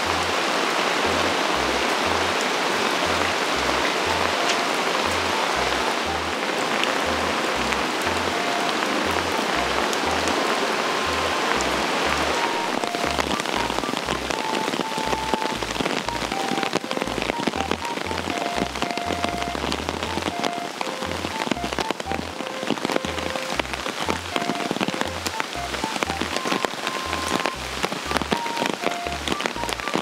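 Rain falling steadily, heavier in the first dozen seconds and thinner after, mixed with background music: a repeating bass line and a simple melody of short notes.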